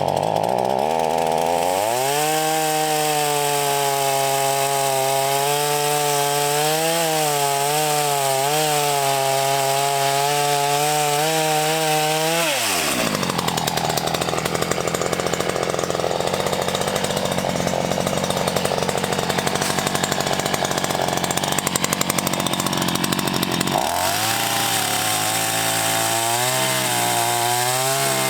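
Black Max 16-inch two-stroke gas chainsaw running at high revs, its pitch wavering with the throttle. About halfway through the engine note drops and turns rough for about ten seconds as it bogs down cutting into wood, then it revs back up near the end.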